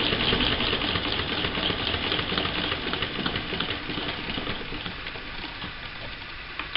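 A sheet of paper rustling and sliding as it is shifted and drawn out from under the sewing machine's presser foot and seam guide, with small clicks of handling over a steady hiss that slowly fades.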